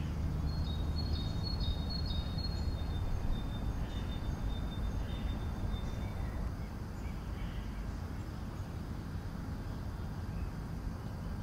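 Steady low background hum of room ambience, with faint, thin, high chirping tones during the first few seconds.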